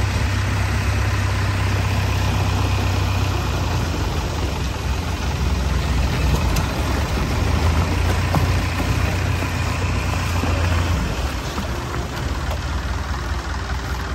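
An engine running steadily with a low hum, easing off a little about eleven seconds in.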